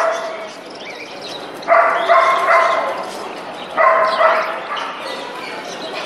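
An animal calling three times, about two seconds apart, each call loud and drawn out with a steady pitch.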